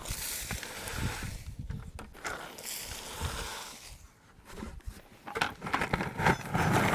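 Wood-chip mulch scraping and rustling as a 5-gallon bucket is scooped full and emptied, with short crunchy strokes that grow busier near the end.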